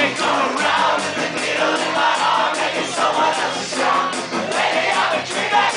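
Live punk rock band playing loud: electric guitar, electric bass and drums, with the bassist singing, recorded from the audience.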